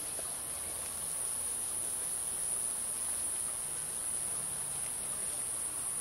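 Cicada singing: one continuous high-pitched buzz, even and unbroken.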